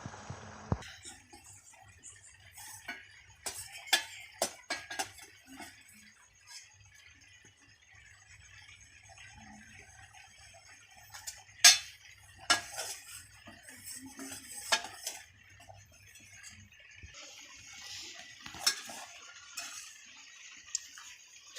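Kitchen utensils clinking and knocking: a scatter of sharp clinks, the loudest about twelve seconds in.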